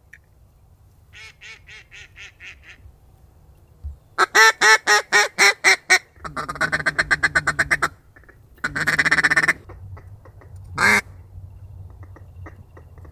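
Mallard duck call blown at circling mallards. First comes a faint string of about seven quacks, then a loud string of about eight quacks and a fast chattering feed call. Another loud burst of calling follows, and one single quack comes near the end.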